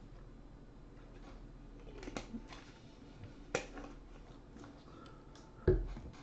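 A few sharp clicks and a louder, dull knock near the end: small handling noises at a desk or table.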